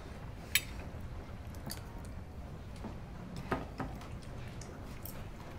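Cutlery tapping and clinking against plates and bowls at a meal: a few light, scattered clicks over quiet room tone, the sharpest about half a second in, with faint eating sounds between.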